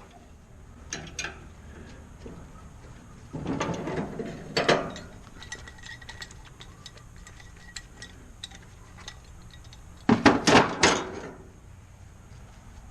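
Scattered clinks and knocks of hand tools and metal parts being handled at a workbench. Two clusters of louder knocks stand out, one around the middle and the loudest near the end.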